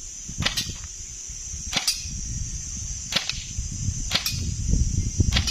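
Airsoft gun firing single shots at a target: about five sharp cracks, a little over a second apart, some followed closely by a second click.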